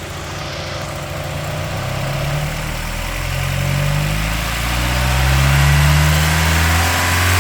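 Mazda Miata four-cylinder engine revved slowly upward from idle, getting louder as the revs climb. This run-up is the test for the rattle/buzz that sets in around 3800 RPM, which the owner traced to an exhaust heat shield loose at a broken weld.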